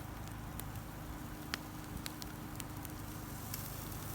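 Campfire crackling, with a few scattered sharp pops over a steady low hiss.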